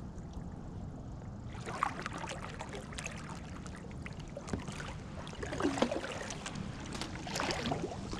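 Irregular water splashes and small knocks from a float line being handled in the water to check it for a catfish, over a steady low wind rumble on the microphone.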